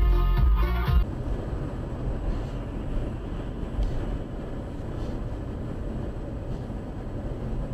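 Music that cuts off abruptly about a second in, followed by steady road and engine noise of a car driving, as heard by a dashcam inside the car.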